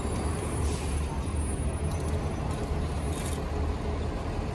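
City bus idling close by: a steady low engine rumble, with a few short, faint hisses over it.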